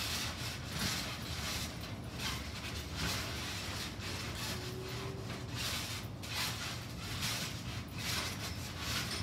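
Trampoline mat and springs under two people bouncing, giving an irregular rubbing swish every half second to a second over a steady low rumble.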